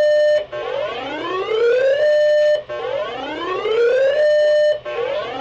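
Electronic siren sounding a repeated rising whoop, heard over a radio broadcast as part of a test tornado warning. Each whoop climbs in pitch for about a second and a half, holds briefly and cuts off sharply, about every two seconds.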